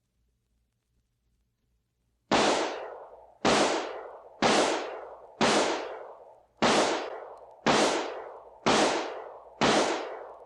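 Eight single gunshots, one about every second, each a sharp crack followed by a fading echo.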